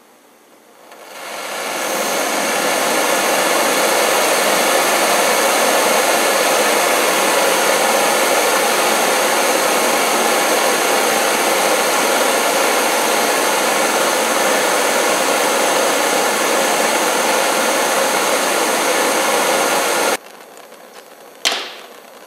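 Homemade propane burner, a brass-pipe orifice feeding a stainless steel tube, burning with a loud steady hiss of gas and flame. It swells up over the first two seconds, cuts off abruptly near the end, and a single sharp click follows.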